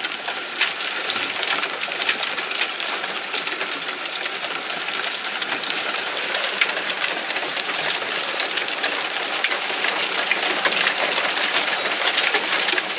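Hailstones falling on parked cars and the street: a dense, steady pattering made of many small ticks as the hail strikes car bodywork, glass and the hail-covered road.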